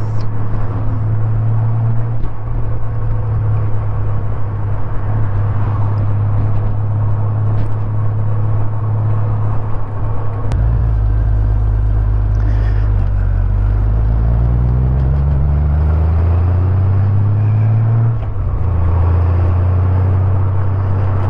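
A 1989 motorcycle's engine running while riding, picked up by a helmet microphone. It runs steadily at first. About halfway through the engine note climbs for several seconds as the bike pulls harder, then drops suddenly near the end, as at a gear change, and steadies again.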